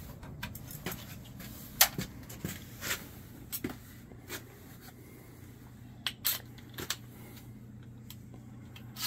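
Scattered light clicks and clinks of tools being handled and picked out of a tool bag, over a steady low hum.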